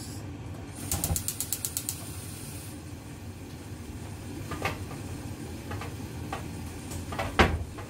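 Kitchen handling sounds: a rapid run of about ten clicks about a second in, followed by a short hiss, then a few separate knocks, the loudest one near the end.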